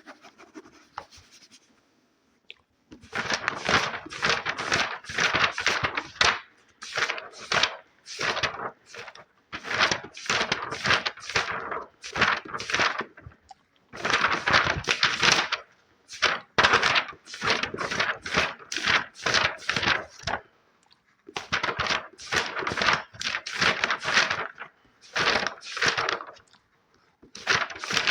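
Fast scratching on a book, a quick run of rasping strokes in bursts of one to four seconds with short pauses between. The scratching starts about three seconds in, after a near-silent moment.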